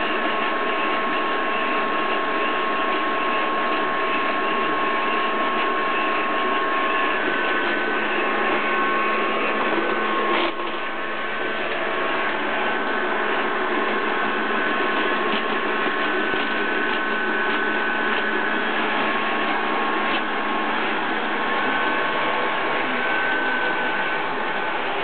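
Robot vacuum cleaner running steadily, its motors giving a steady whine over a suction hiss. A single sharp knock comes about ten seconds in, after which the sound is a little quieter.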